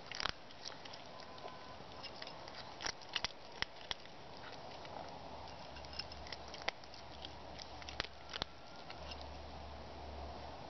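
A cat eating, with irregular sharp clicks of chewing and biting scattered through.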